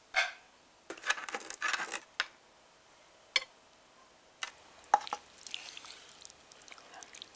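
Cutlery clinking and scraping against a metal tart tin and a ceramic plate as slices of chickpea flatbread are lifted out, with a few sharp single clinks. Near the end comes the softer scraping of a wooden spoon in a frying pan of ratatouille.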